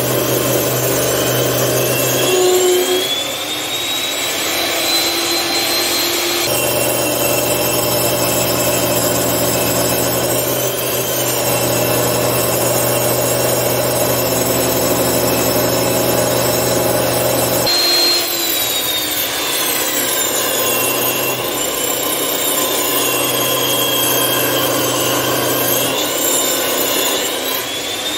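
Bench-mounted power woodworking machine running and cutting wood as boards are fed across it. A high motor whine sags and recovers in pitch several times as the cuts load it.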